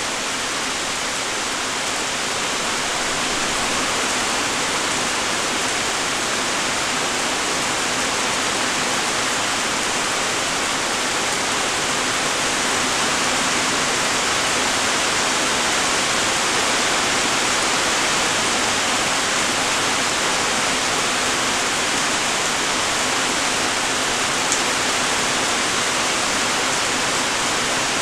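Steady light rain: an even hiss of many small raindrops, with one brief tick late on.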